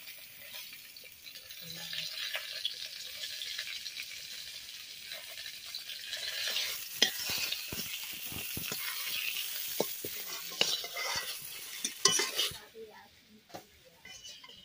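Halved brinjal (eggplant) sizzling as it shallow-fries in a metal kadai, with a metal spatula scraping and knocking against the pan as the pieces are turned. The sizzle drops away near the end, leaving a few light clicks.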